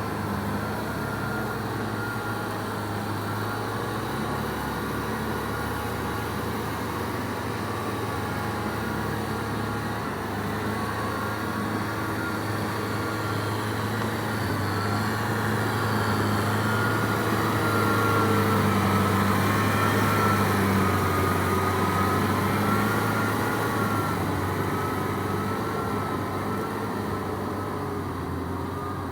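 Kubota M6040SU tractor's diesel engine running steadily under load while ploughing, its pitch wavering slightly. It grows louder partway through, then eases again.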